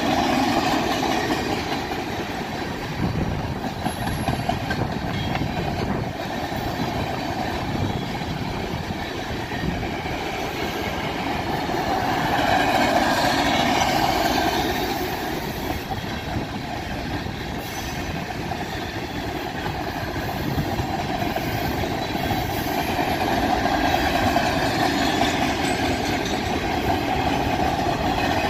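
Freight cars of a BNSF manifest train rolling past close by: steel wheels on the rail make a steady rumble with a running clickety-clack over the rail joints, swelling and easing as the cars go by.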